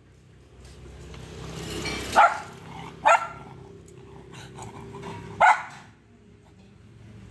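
Small dogs, a Pomeranian and a Lhasa apso, barking at each other in a play fight: three sharp barks, two close together and a third about two seconds later.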